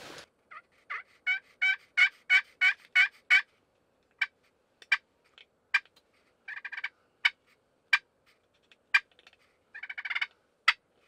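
Pot-style friction turkey call worked with a wooden striker, imitating a hen: a quick even run of about nine yelps, then scattered single clucks broken by two short purrs.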